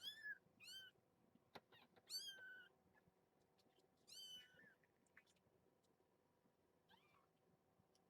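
Week-old kittens mewing: several short, thin, high-pitched mews, each falling in pitch at the end, in the first five seconds, then a faint one near the end. A couple of soft clicks come between the mews.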